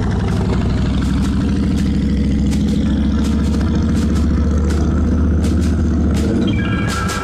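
Steady low rumble of wind buffeting and road noise on a bike-mounted camera while riding down a street.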